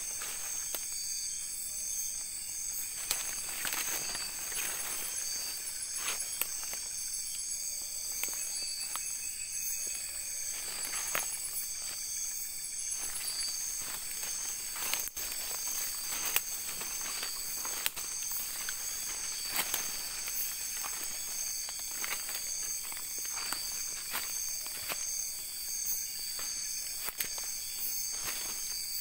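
Night insect chorus, a steady high-pitched pulsing trill, with scattered footsteps and rustles in leaf litter.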